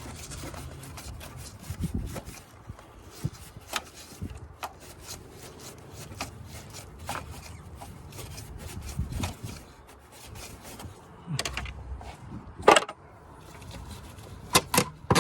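Hands working in a car's engine bay: a run of small plastic and metal clicks, rubbing and scraping as connectors and hoses are unclipped and parts handled, with a sharp knock late on and two more sharp clacks near the end.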